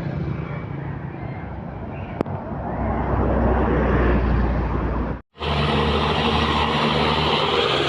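Bus engine and road noise as a large bus runs past, steady and loud. The sound cuts out abruptly about five seconds in and resumes with a different, brighter traffic noise.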